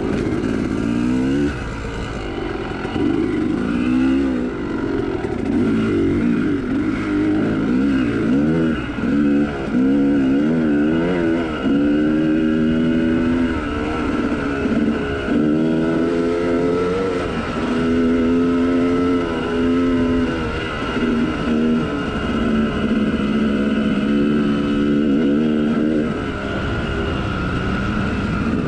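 Yamaha YZ295 two-stroke dirt bike engine under hard riding, heard from a camera mounted on the bike. The engine pitch climbs and drops back again and again, every second or two, as the rider works the throttle and shifts gears.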